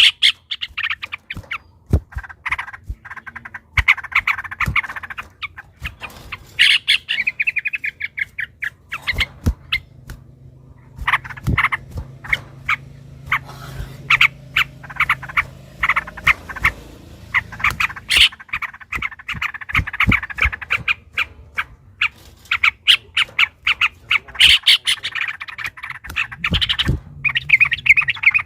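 Yellow-vented bulbuls (trucukan) singing in quick, repeated bursts of bubbly, chattering notes, phrase after phrase with short gaps.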